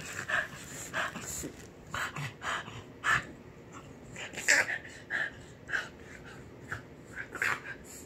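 Small terrier making short, breathy huffs at uneven intervals, about a dozen in all.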